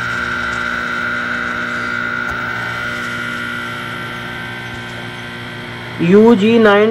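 A steady hum with a constant high-pitched whine over it, easing off slightly over the first six seconds. A man's voice starts near the end.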